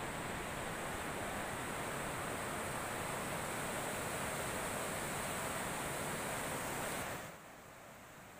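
Steady rush of fast river water pouring through a weir's sluice gates. About seven seconds in it drops abruptly to a much quieter rush.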